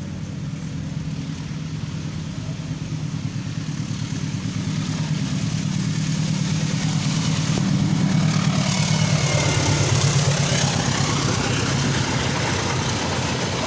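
Long-distance passenger train hauled by a diesel-electric locomotive approaching and passing close by: the locomotive's engine runs steadily and grows louder, then the noise of the coaches' wheels on the rails takes over as they go by, loudest about ten seconds in.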